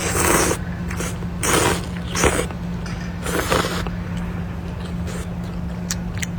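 Someone eating noodles: four short slurps in the first few seconds, then a few sharp clicks near the end, over a steady low hum.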